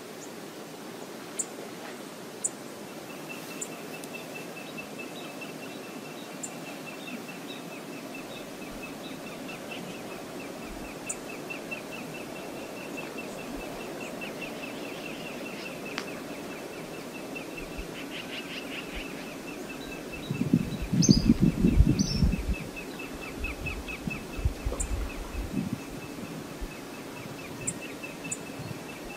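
Outdoor shoreline ambience: steady wind and water hiss. Through most of it runs a bird's long, rapid series of high, evenly repeated chips, with a few sharp high ticks. Around two-thirds of the way in, wind buffets the microphone with a couple of seconds of loud, low rumbling gusts, then a few smaller ones.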